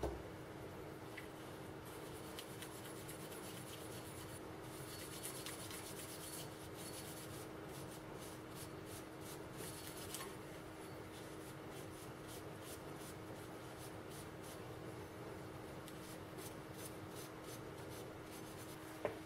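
Steel wool rubbed by hand over the metal parts of a WWII German mortar: faint scratching strokes that come in spells, busiest in the middle. A steady low hum runs underneath.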